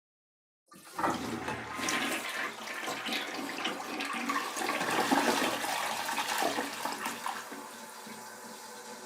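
Toilet flushing: the rush of water starts suddenly about a second in, runs loud for some six seconds, then eases to a quieter steady flow near the end.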